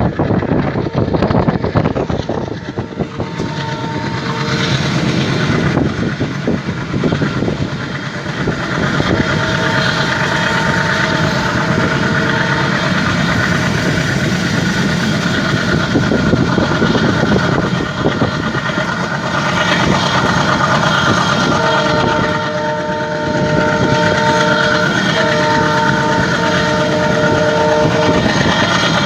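WDG3A diesel locomotive's ALCO 16-cylinder engine chugging hard as the train accelerates. The locomotive sounds its twin horns three times: a faint blast early on, a second about ten seconds in, and a long blast near the end that breaks briefly in the middle.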